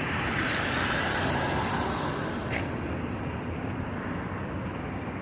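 Boulevard road traffic running steadily, with a vehicle passing close by that swells and fades over the first two seconds or so, and one brief sharp sound about two and a half seconds in.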